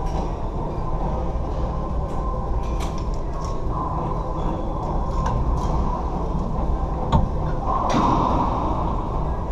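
Racquetball rally: a series of sharp, echoing cracks as the ball is struck by racquets and rebounds off the court walls, the loudest about seven seconds in, over a steady low rumble.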